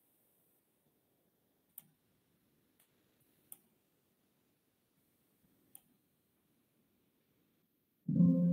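A few faint computer mouse clicks spread out over several seconds, then near the end a louder Windows alert chime: a few steady tones that sound together as an Excel warning dialog box pops up.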